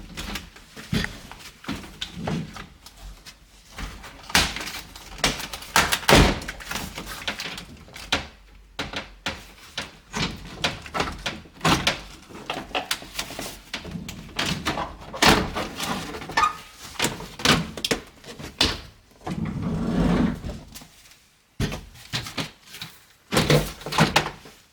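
Irregular knocks, clicks and thumps as the sliding door's plastic trim panel is pushed off its retaining clips by hand and bumps against the door, with one longer, heavier rumble about twenty seconds in.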